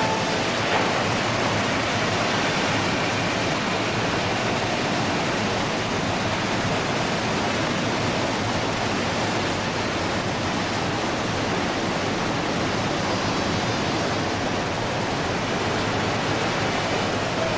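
The steady rushing noise of Victoria Falls, the Zambezi River pouring over the cliff into its gorge, heard close to the falls.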